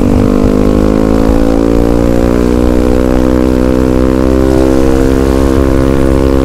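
Yamaha WR155R's single-cylinder engine running while riding, its pitch climbing a little over the first two seconds and then holding steady.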